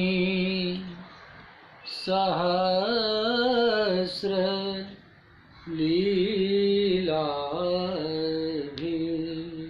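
A man's solo voice chanting a devotional Sanskrit verse in three long, held, melodic phrases with short pauses between them.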